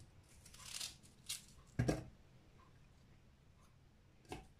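A few soft knocks and rustles of chopped onion pieces being dropped into a plastic mini-chopper bowl, the sharpest knock just before two seconds in and another near the end.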